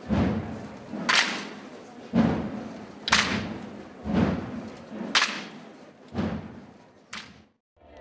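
Slow, steady percussion beat of a Passion procession, about one stroke a second, a low thump and a sharp crack in turn, each ringing off the walls. It stops abruptly shortly before the end.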